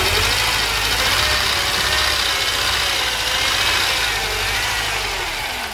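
Mercedes M102 2.0 four-cylinder petrol engine idling roughly with cylinder three disabled, which silences the knock that the owner traces to that cylinder's connecting-rod bearing or piston pin. The sound cuts off suddenly near the end.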